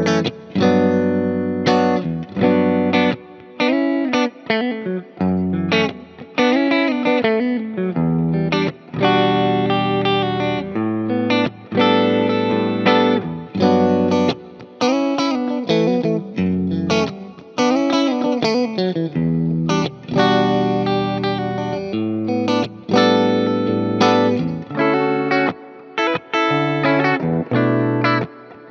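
PRS SE Swamp Ash Special electric guitar playing melodic lead phrases with string bends through effects, over a backing track. The phrases pause briefly every couple of seconds.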